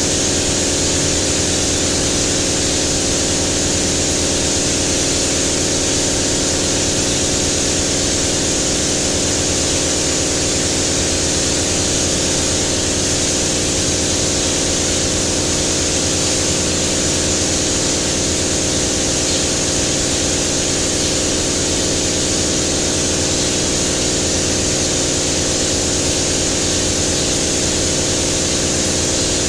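Paint-spraying equipment running without a break: a steady hiss of air over an even motor hum.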